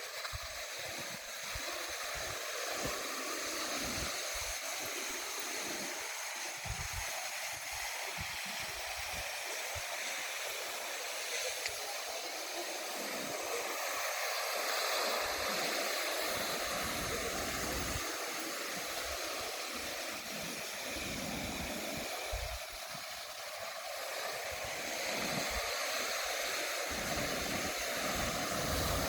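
Ocean surf washing onto the beach in a steady hiss, swelling a little about halfway through and again near the end, with uneven low rumbles underneath.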